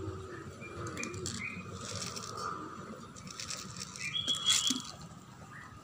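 Dry cat kibble rattling out of a small plastic bottle onto a tiled floor, loudest about four seconds in, beside a cat eating. A few short high chirps sound in the background.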